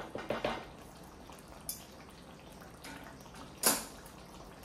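Wet drips and splutters from a chicken and potato curry simmering in a pot: a few separate short sounds, the loudest a little before the end.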